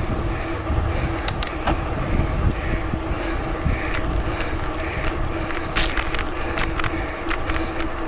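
A bicycle riding along a trail: a steady rumble of tyres and wind over the microphone, with a faint steady hum and scattered sharp clicks and rattles.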